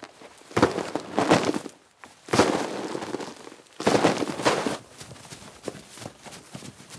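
Three loud rustling crashes of bodies and objects through dry leaves and brush, each under a second, followed from about five seconds in by quicker, lighter footsteps of people running through grass.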